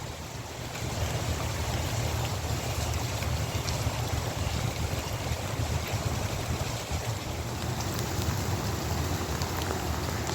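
Steady hiss of heavy rain falling, over a constant low rumble.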